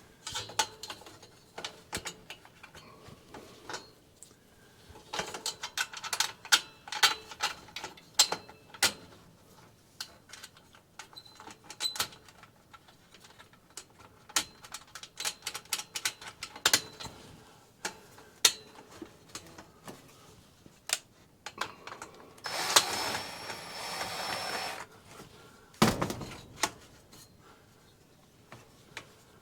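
Sheet-metal stovepipe being refitted by hand: scattered metallic clicks, taps and knocks, with a steady noisy stretch of about two seconds three-quarters of the way through and a single low thump just after it.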